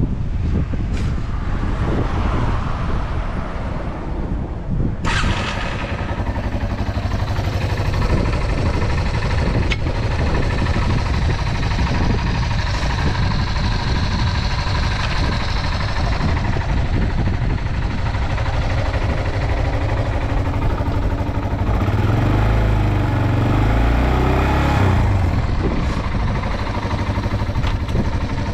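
Yamaha TW225's single-cylinder four-stroke engine running, with a change in its sound about five seconds in and a heavier low note a little past the middle. The seller describes the engine as free of abnormal noises.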